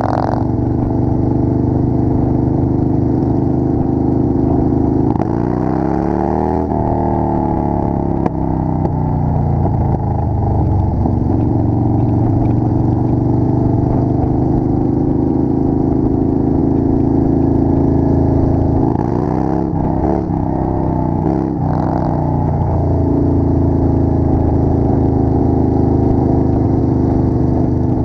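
Motorcycle engines running at cruising speed in a group ride, heard from among the bikes with steady road and wind noise. The engine note shifts in pitch twice, about five to eight seconds in and again about twenty seconds in.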